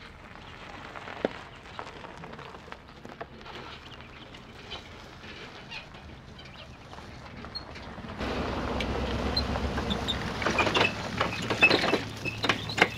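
Birds chirping over outdoor ambience. About eight seconds in, a steady low motor hum and a louder rush come in, with a few sharp knocks near the end as the bass boat comes off its trailer into the water.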